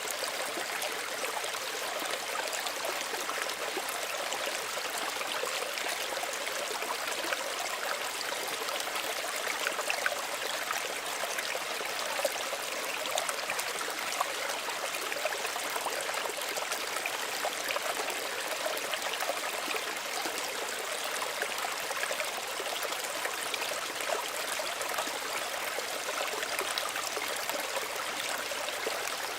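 Small stream running steadily over stones, an even rush of water with many small trickling splashes.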